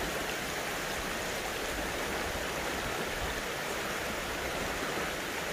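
A steady rushing noise of running water, even throughout.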